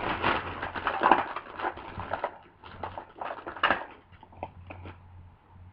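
Stamp ink pads in hard plastic cases being rummaged through and handled: a quick run of clacks and rustles that thins out after about two seconds.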